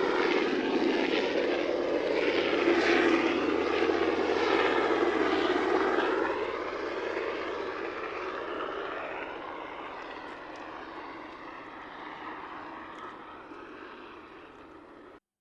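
Coastguard aircraft flying low overhead, its engine and propeller noise sweeping in pitch as it passes. It is loudest in the first six seconds, then fades as it moves away, and the sound cuts off just before the end.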